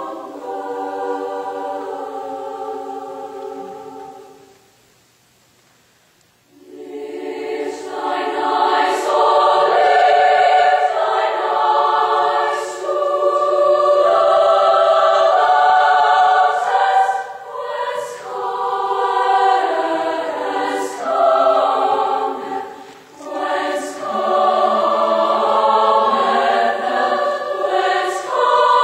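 Large women's choir singing sustained chords in harmony. The phrase dies away about four seconds in, there is a silence of about two seconds, then the voices come back in fuller and carry on through several held phrases with short breaths between them.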